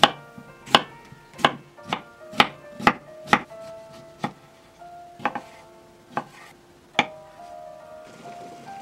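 A kitchen knife slicing cucumber and tomato on an end-grain wooden cutting board. Each cut ends in a sharp knock on the board, about a dozen in all, less than a second apart at first and sparser later, over light background music. Near the end a bubbling hiss of boiling water sets in.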